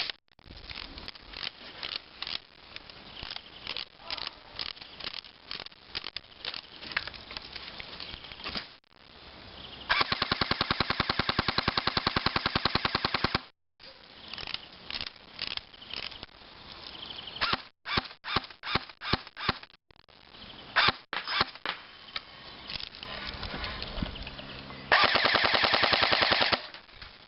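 Airsoft MP5K electric gun, fitted with an AKS-74U barrel and an M4-type cylinder, firing two rapid full-auto bursts: a long one of about three and a half seconds midway and a shorter one near the end. Between the bursts come scattered sharp clicks.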